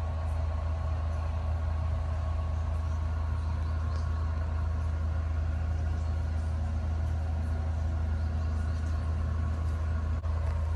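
A heavy vehicle idling steadily: a loud, unchanging low hum with faint steady higher tones above it.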